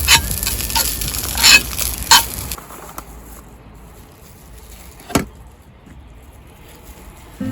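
Food sizzling in a frying pan, with utensil clinks and scrapes, for the first couple of seconds, then a sudden drop to quiet background with a single sharp knock about five seconds in.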